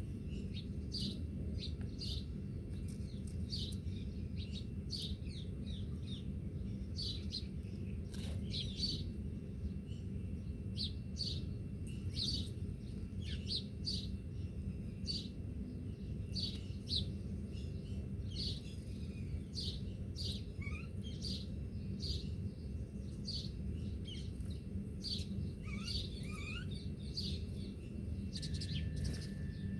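Small birds chirping: short, high chirps repeating about twice a second, with a few brief sliding calls in the second half, over a steady low rumble.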